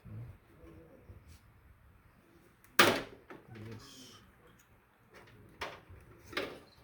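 One loud, sharp click about three seconds in, then a couple of lighter clicks near the end: cables and parts being handled inside a desktop computer case, with the front-panel audio and USB connectors being unplugged.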